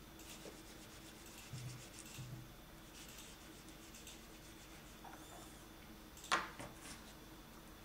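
Wax crayon scribbling on paper in quick back-and-forth strokes, colouring in. About six seconds in comes a sharp click, the crayon being set down among the others.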